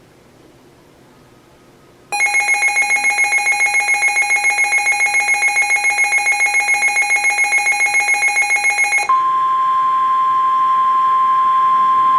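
Weather alert radio's built-in alarm: a loud buzzing tone that pulses about six times a second, starting about two seconds in after faint static hiss and lasting about seven seconds. It then gives way to a steady single-pitch tone, the 1050 Hz NOAA Weather Radio warning alarm tone, which signals that a warning broadcast is about to follow.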